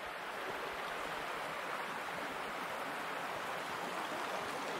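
River water rushing steadily over its bed.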